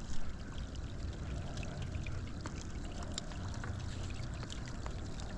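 Water sloshing and trickling around a big carp held in the shallows to recover before release, with small scattered splashes.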